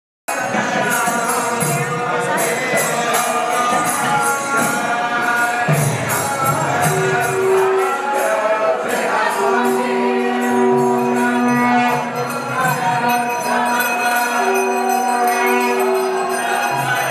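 Kirtan music starting abruptly: chanting voices with long held notes over a steady rhythm of jingling hand cymbals.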